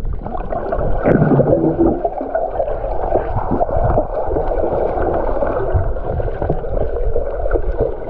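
Rushing and gurgling water heard through a camera microphone held underwater beside a swimmer: a dense, muffled noise with nothing high in it, crackling and bubbling throughout.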